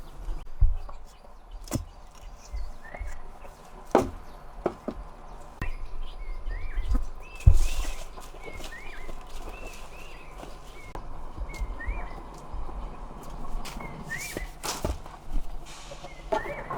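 Small birds chirping in many short, rise-and-fall peeps, over footsteps and scattered knocks and thuds.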